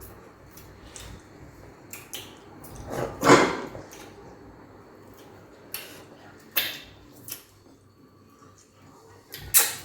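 Eating noises at a meal of peanut soup and fufu: scattered short clicks and knocks of dishes and mouth sounds. The loudest is a half-second burst about three seconds in, with sharper knocks near the middle and the end.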